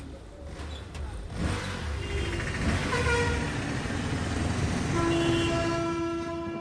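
Road traffic with engines running and vehicle horns honking: short toots about two and three seconds in, and one long horn held for about a second and a half near the end.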